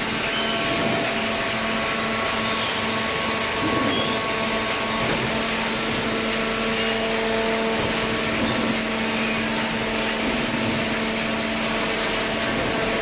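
Horizontal hydraulic waste paper baler running: a steady hum from its hydraulic power unit over an even mechanical noise.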